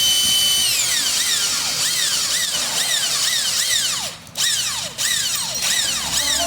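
Small electric power tool's motor whining at high speed, then its pitch repeatedly dipping and climbing back, about two to three times a second, with two brief cut-outs near the end.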